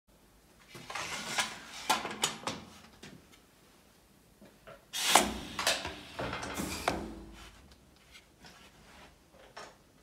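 Aluminium window-frame profile being handled and slid into place on a corner crimping machine's metal table: a run of clacks, knocks and scrapes in two clusters, about one to two and a half seconds in and again about five to seven seconds in.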